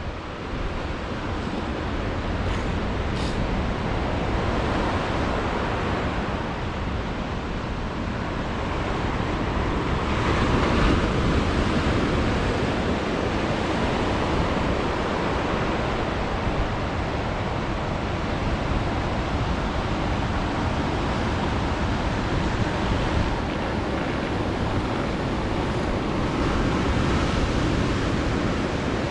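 Ocean surf washing onto the shore, mixed with wind on the microphone: a steady rush of noise that swells a little about ten seconds in.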